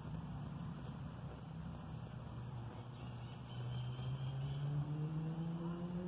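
A motor vehicle's engine hum that, about three and a half seconds in, gets louder and climbs slowly and steadily in pitch as the vehicle accelerates.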